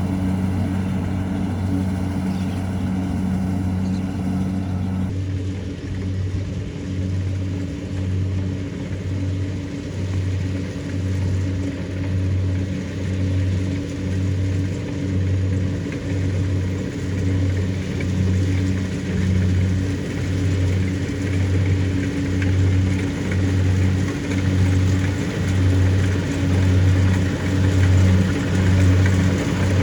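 Kubota DC-70 Pro rice combine harvester's diesel engine running steadily under harvesting load. It has a low hum that throbs about once a second, and a higher-pitched layer drops away about five seconds in.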